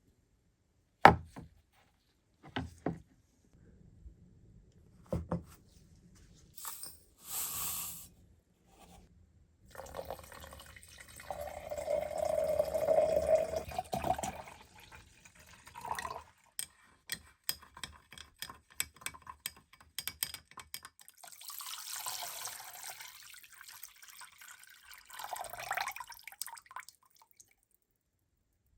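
Water poured and splashing into a container, with knocks and small clicks from things being handled; the loudest sound is a sharp knock about a second in. This is setting up an electrolysis bath to remove rust from an old iron axe head.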